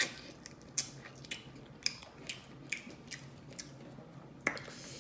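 A person chewing a mouthful of seafood close to the microphone: wet mouth smacks and clicks, about two a second, at an uneven pace.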